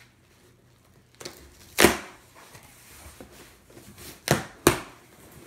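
Cardboard box being pulled open by hand: three sharp cracks as the flaps give way, the loudest about two seconds in and two more close together near the end, with softer scraping and rustling of the cardboard between.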